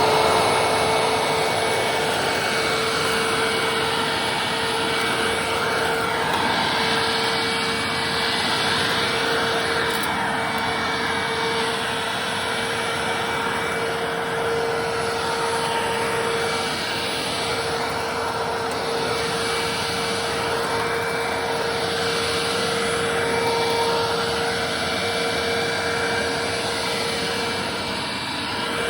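Hoover Windtunnel Self-Propelled Ultra upright vacuum cleaner with its 12-amp motor running steadily at full speed on the carpet setting: a steady whine over a loud rush of air, the rushing sound shifting slightly as the cleaner is moved across the carpet.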